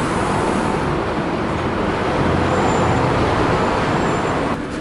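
Steady street traffic noise from passing road vehicles, a loud even rush. It drops away abruptly near the end.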